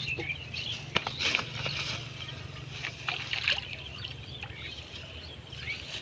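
A hooked fish hauled out of the water through water hyacinth onto the bank: a few sharp rustles and knocks about a second in and around three seconds in, over a steady low drone with high chirps above it.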